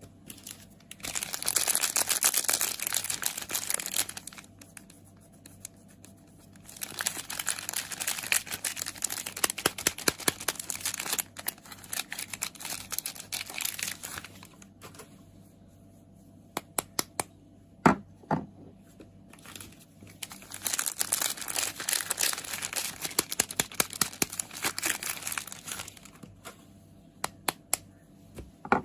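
Soap packaging crinkled and torn open by hand in three long spells. A few sharp taps fall in the quiet gaps between them, the loudest about two-thirds of the way through.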